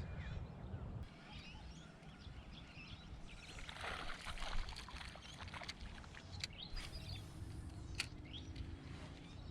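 Birds chirping in short calls over a steady low rumble, with a brief rush of water-like noise about four seconds in.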